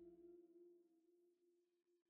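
The last sustained notes of a bell-like background music track ringing out and fading into near silence.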